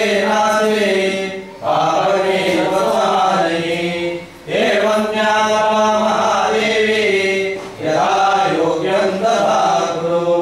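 Priests chanting mantras together in long, evenly held phrases, with brief pauses for breath about every three seconds.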